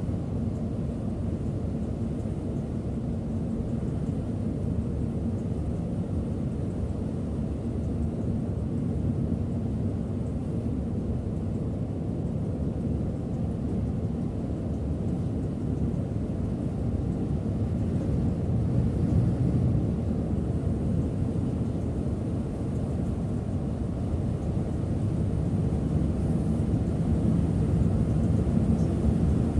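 Steady low rumble of a Setra S 531 DT double-decker coach under way, heard from inside the cabin at the driver's seat: engine and road noise, growing a little louder near the end.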